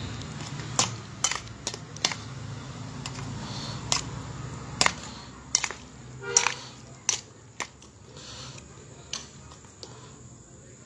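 A metal utensil clinking and scraping against a stainless steel basin as instant noodles with chili sauce and chicken are stirred and tossed: sharp, irregular knocks, a dozen or so, over a steady low hum.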